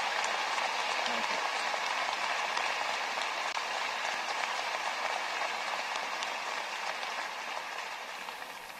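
Large audience applauding steadily, slowly dying away near the end.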